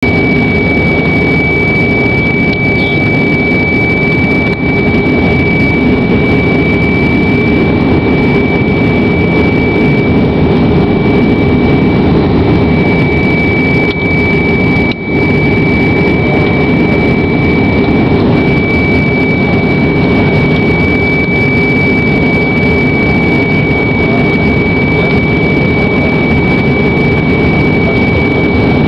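Airbus A321 jet airliner noise inside the passenger cabin during descent: a steady roar with a steady high-pitched whine, dipping briefly about halfway through.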